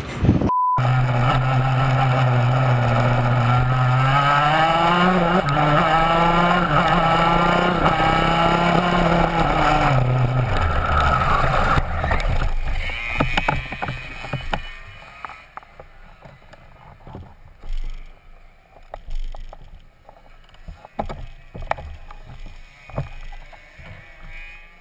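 Shifter kart's two-stroke engine running with a steady low pitch that rises a little and wavers, then dies away about ten to twelve seconds in. After that there are only faint scattered clicks and knocks.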